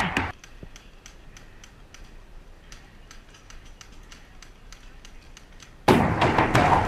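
Faint, rapid, fairly evenly spaced clicks and pops of paintball markers firing at a distance. Loud background music cuts off just after the start and cuts back in abruptly near the end.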